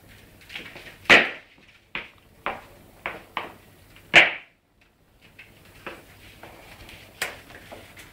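A wicker wastebasket knocking and scraping on a tiled floor as a bull terrier puppy pushes it around with its head inside. The knocks come irregularly, about eight of them, with the loudest about a second in and about four seconds in.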